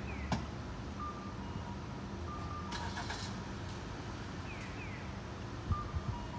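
Steady street traffic hum as a small police patrol car pulls away slowly with no siren. There is a brief clatter about three seconds in and a couple of low thumps near the end.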